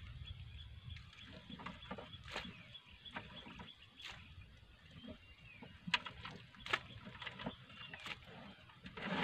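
Scattered light knocks and clicks as hands and brush work inside a rusty, water-filled metal drum, over a low rumble.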